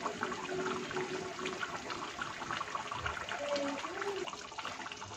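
Mutton rezala gravy simmering in a kadhai over a gas burner: a steady crackle of small bubbling pops.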